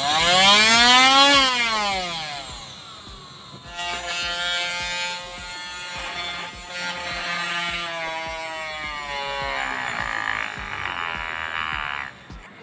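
Homemade 775 DC motor drill whining up to speed and winding down, then running again with a wavering pitch as it drills into wood, stopping near the end.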